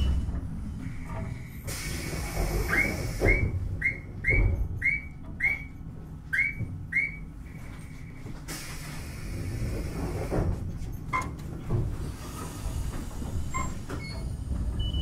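Randen tram car 631 standing at a station with a low rumble. Eight short ringing chimes sound about twice a second in the middle. Near the end it pulls away again, its running noise slowly building.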